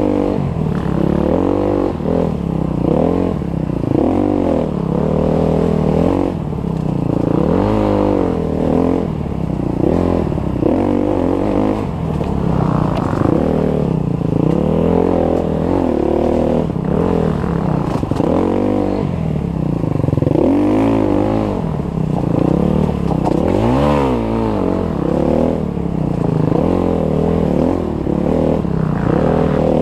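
Enduro dirt bike engine running under load, its pitch rising and falling again and again as the throttle is opened and closed, with a sharper rise and drop a little before three-quarters of the way through.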